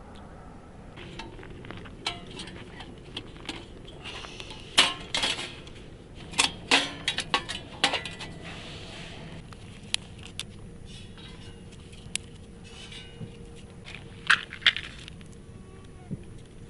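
Clinks, clatters and knocks of small hard objects being handled and set down, in irregular clusters, the busiest stretch about five to eight seconds in and another short one around fourteen seconds in.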